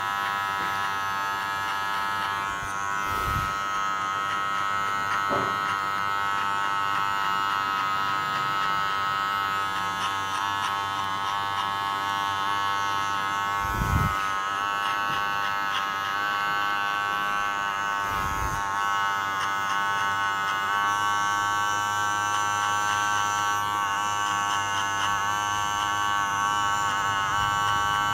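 Electric hair clipper running with a steady buzz, its blade set open while fading hair. A few dull thumps come through, about four across the stretch.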